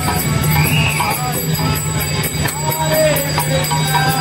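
Devotional kirtan music with jingling metal percussion keeping a steady rhythm over a steady low hum, with voices mixed in.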